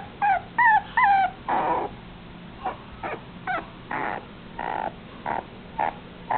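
Long-haired dachshund puppy whimpering: three short, high whines that fall in pitch, then a string of shorter, rougher yips.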